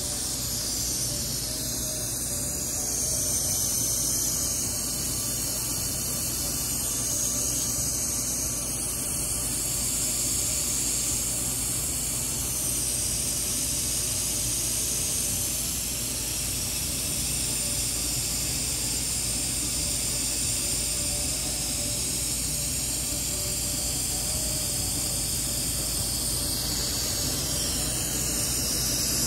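Steady high hiss over a low hum from a roller-forming machine pressing corrugations into brass tubing.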